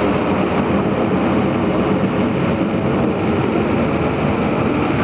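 A vehicle engine running steadily, an even loud noise with no change.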